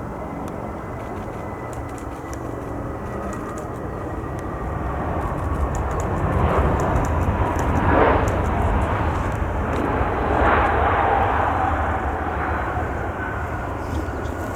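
Jet airliner passing with its engines running, a steady rush that swells to its loudest about halfway through and then eases. A thin engine whine slides down in pitch as the aircraft goes by.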